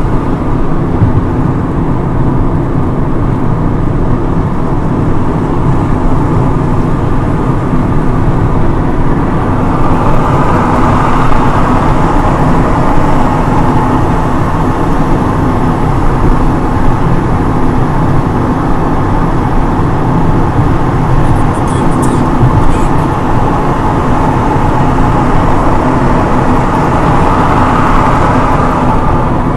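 Steady road and engine noise inside a car cruising at highway speed, as heard from a windscreen dashcam; the tyre hiss grows somewhat louder about a third of the way in.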